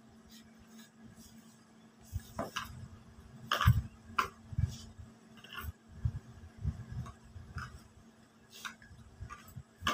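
A hand kneading ghee-rubbed flour and water into a stiff dough in a plastic bowl: irregular soft thumps and knocks against the bowl with a few light clicks, starting about two seconds in.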